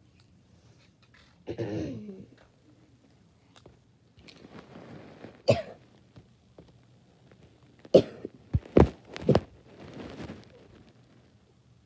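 A child close to the microphone coughing and clearing the throat, with rubbing and knocking as the phone is handled. A short voiced sound comes about a second and a half in, and a quick cluster of sharp bursts about eight to nine and a half seconds in.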